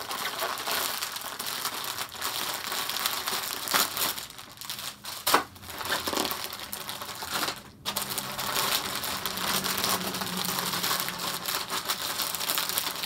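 White plastic poly mailer bag crinkling and rustling as it is torn open and unpacked by hand, with sharp crackles throughout and brief lulls about five and eight seconds in.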